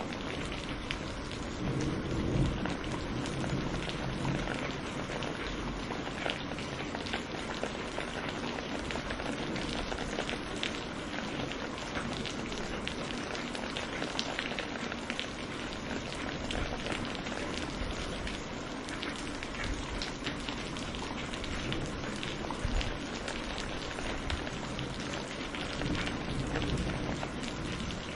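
Steady heavy rain pattering on surfaces, with a low rumble of thunder swelling about two seconds in.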